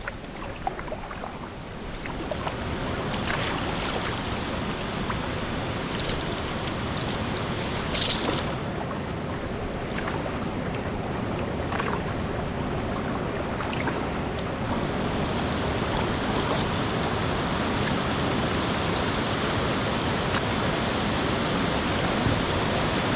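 Rushing water, a steady hiss that builds over the first couple of seconds and then holds, with a few faint knocks.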